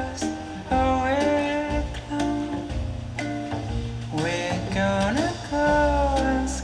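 A song with guitar, bass and a singing voice, played back through a Marshall Acton II Bluetooth speaker as a sound test.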